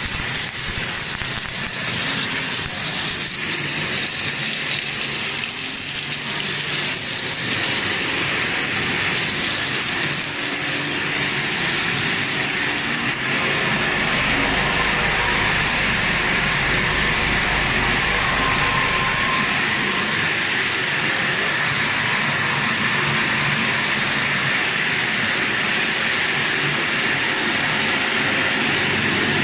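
Cheetos-style snack production line running: a steady rushing hiss of machinery, with a low hum joining for several seconds in the middle.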